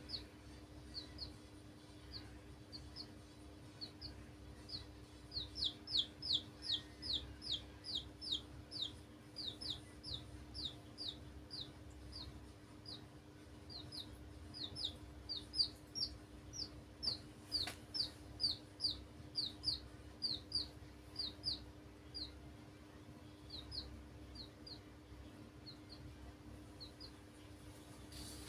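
Baby chicks peeping: runs of short, high, downward-sliding cheeps, several a second, loudest in two long runs. A faint steady hum runs underneath, and there is a single click about two-thirds of the way through.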